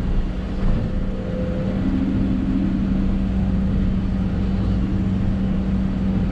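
Hidromek 220 LC excavator's diesel engine running steadily with the hydraulics working, heard from inside the cab, as the bucket digs into and lifts a load of soil.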